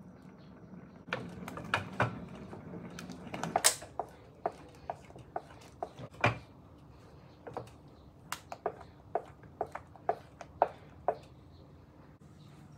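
Wooden spatula knocking and scraping against a stainless steel pot while stirring a thick, cooked-down sweet corn pudding batter. The knocks come unevenly at first, the loudest about four seconds in, then quicker and more regular in the second half.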